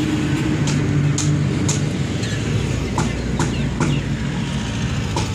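A vehicle engine running steadily, a low even hum, with scattered light metallic clicks and clinks as a brake drum is handled on its wheel hub.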